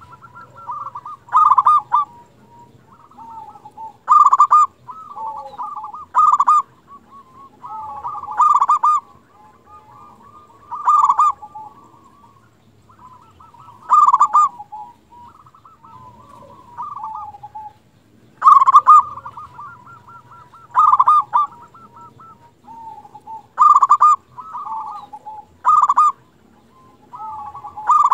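Zebra dove (local perkutut) singing over and over: loud cooing phrases with trilled notes every two to three seconds, with a couple of short pauses.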